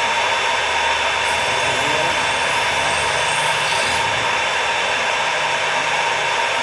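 Knife sharpening machine running: a loud, steady whirring hiss with a constant whine over it.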